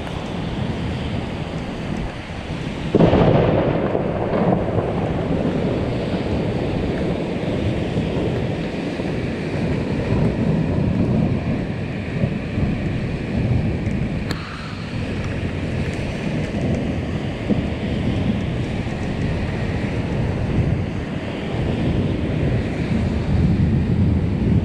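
Thunder from a nearby thunderstorm: a sudden loud clap about three seconds in, then a long rolling rumble.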